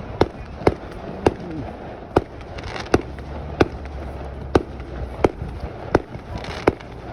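Fireworks going off: a steady run of about ten sharp bangs, roughly one every two-thirds of a second, over a continuous rumble.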